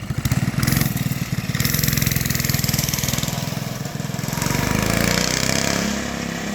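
Coleman minibike's small four-stroke single-cylinder engine running, its pitch rising and falling as the throttle is worked. It runs smoothly now that a fuel-system cleaner has cured its former refusal to idle.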